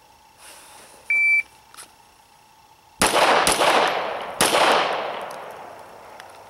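Shot timer gives one short start beep, then a Glock 34 9mm pistol fires three shots: a quick pair about half a second apart and a third about a second later, the two-to-the-body, one-to-the-head drill. The shots echo and fade out slowly.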